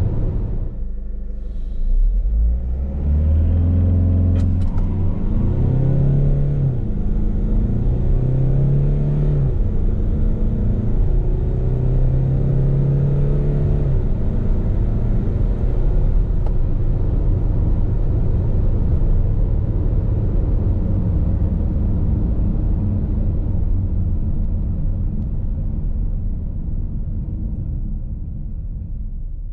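Cabin noise of the 2020 Peugeot Expert's 2.0-litre turbo-diesel four-cylinder at around 100 km/h in fourth gear, slowing gently: a steady engine drone under road and tyre noise. The sound dips briefly about a second in, then the engine note rises. It fades out near the end.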